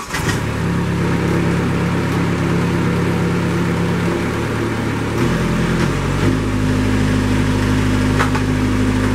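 Kubota compact tractor's diesel engine running just after starting, with a steady note. Its speed steps up about five seconds in and again about a second later.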